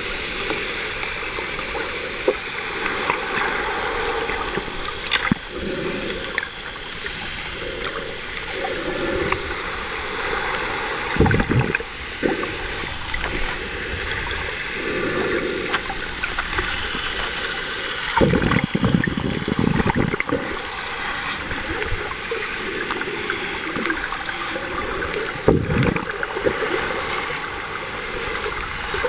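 Water sloshing and gurgling around a camera held underwater while snorkeling, a steady wash with several louder low surges.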